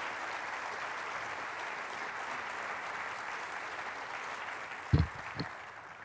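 Audience applauding, the clapping thinning and fading out near the end. Two short low thumps about five seconds in, close to the podium microphone.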